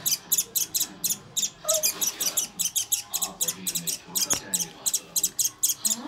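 Indian silverbill chick giving rapid, high begging calls, about four to five short chirps a second without a break, as it gapes for food.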